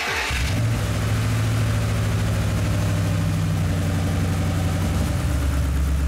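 Car's petrol engine idling steadily with the bonnet open, running with a misfire on cylinder 4 (trouble code P0304).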